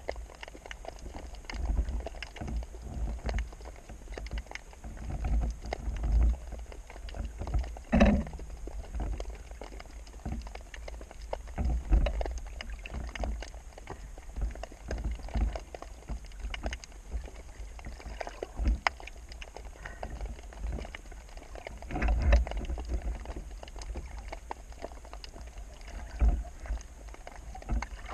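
Muffled water sloshing and splashing with irregular dull knocks and a low rumble, one sharper knock about eight seconds in.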